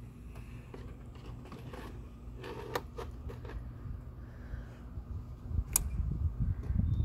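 Plastic radiator fan shroud of a Mercedes E500 being worked into place in front of the radiator: a string of small plastic clicks and knocks in the middle, then one sharp click near the end, over a low rumble.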